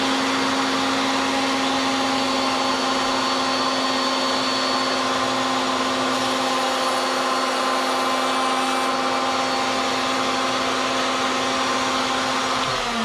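Woodworking router in a router table running steadily at full speed, a constant motor whine, during a very light trimming pass to take a hair off a slightly off dado. Near the end it is switched off and its pitch falls as the bit spins down.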